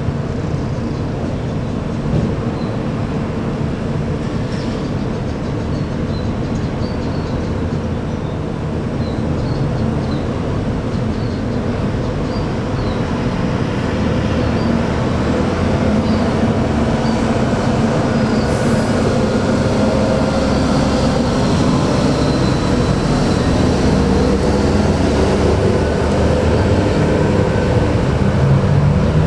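Large diesel bus engine running steadily, a low rumble that grows louder through the second half.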